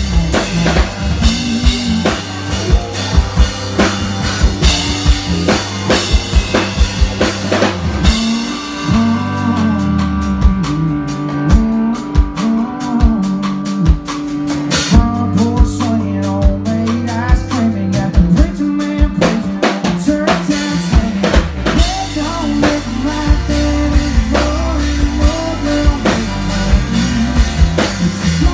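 Live country band playing, drum kit to the fore with acoustic and electric guitars. The deep bass drops out for a stretch in the middle, then comes back in.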